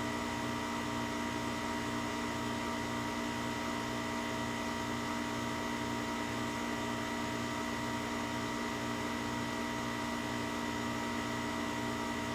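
Steady mechanical hum with several fixed tones over a light hiss, unchanging throughout.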